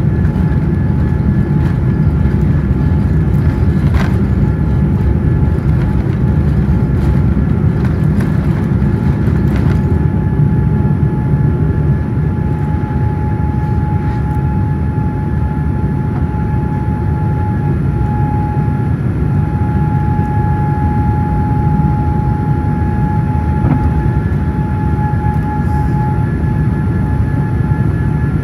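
Steady cabin noise of a Boeing 787-10 airliner heard from inside the cabin: a loud, even rumble from the jet engines and airflow, with a steady whine above it.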